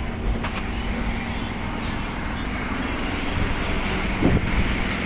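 Electric multiple-unit suburban train running on the track, a steady rumbling running noise heard from on board. A short voice-like sound comes near the end.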